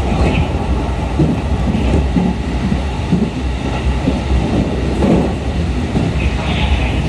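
Cabin running noise of a 211 series electric train under way: a steady deep rumble of wheels on rail, heard from inside the carriage.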